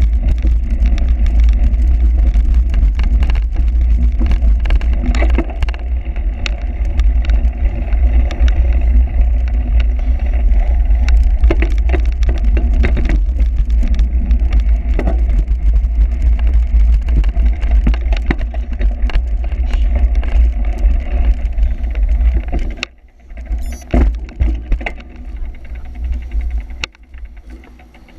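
Heavy wind rumble on the microphone with clatter and knocks from a cyclocross bike riding over rough ground. About 23 seconds in the rumble eases, leaving scattered knocks.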